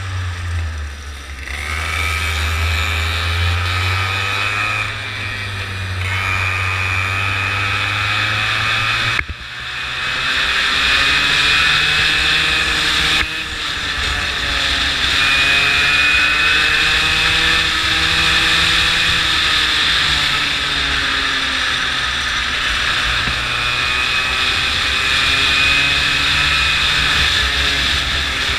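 Go-kart engine heard from onboard, its pitch rising and falling again and again as the kart speeds up on the straights and slows into corners. The level drops suddenly about nine seconds in and again about thirteen seconds in.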